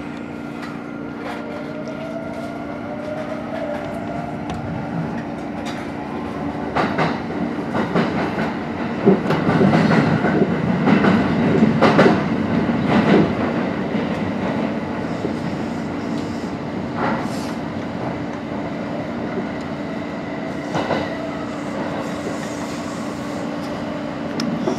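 Kintetsu electric train heard from inside the front car as it runs through a tunnel. A motor whine rises in pitch in the first few seconds as it gathers speed. Wheels then clack over rail joints and points, loudest in the middle, before settling back to a steady running rumble.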